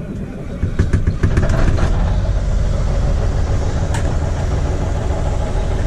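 An engine running steadily, growing louder over the first second and a half, with a few knocks in the first two seconds and a sharp click about four seconds in.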